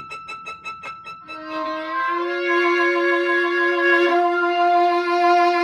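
Violin playing a rapidly pulsing high note for about a second, then long held notes that stack up into a sustained chord, with another instrument joining and a new higher note entering partway through.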